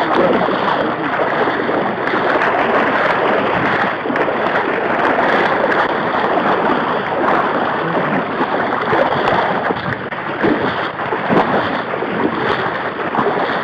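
Steady sloshing and splashing of legs wading through shallow water, an unbroken watery churn with small irregular splashes.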